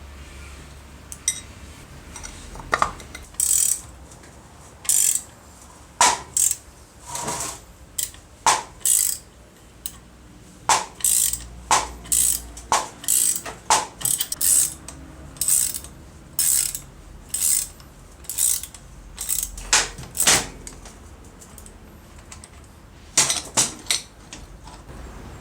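Hand tools working on the metal parts of an old air compressor: about two dozen short, sharp mechanical clicking spurts at irregular intervals.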